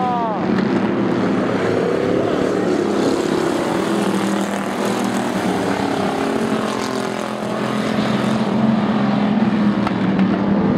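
Several hobby stock race cars' engines running together around a dirt oval, a steady drone of overlapping engine notes, a little louder near the end as the pack comes round.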